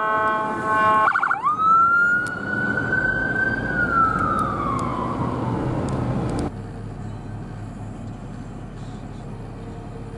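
Ambulance electronic siren: a rapid pulsing tone for about a second, then one wail that rises, holds and slowly falls. After about six and a half seconds it cuts away to quieter street noise with a low hum.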